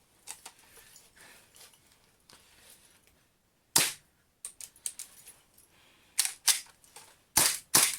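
WE Colt 1911 gas blowback airsoft pistol, fitted in a carbine kit, firing: one sharp shot about four seconds in, then four more in quick succession near the end, after a few faint handling clicks.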